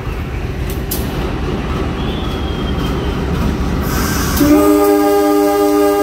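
A low steady rumble from a KAI CC 203 diesel-electric locomotive standing at the platform. About four and a half seconds in, its horn starts a long steady chord of several notes, the departure signal.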